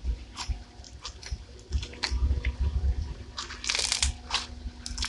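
Stretchy slime packed with tiny foam beads being squeezed and pulled by hand, giving scattered soft crackling crunches, with a denser, louder run of crackling a little after three and a half seconds in.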